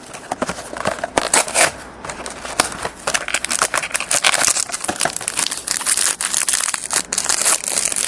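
Plastic trading-card pack wrapper crinkling and crackling steadily as a pack is torn open and the cards inside are handled.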